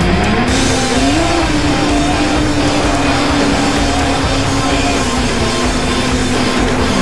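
Onboard whine of a 7-inch FPV racing quadcopter's brushless motors (2507 1500KV) and propellers in flight. The pitch rises over about the first second as throttle comes up, then holds fairly steady.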